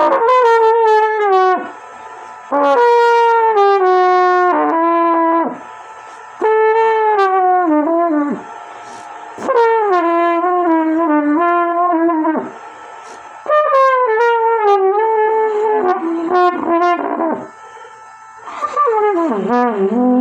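Trumpet played solo: six short phrases, each stepping downward in pitch, with brief pauses between them.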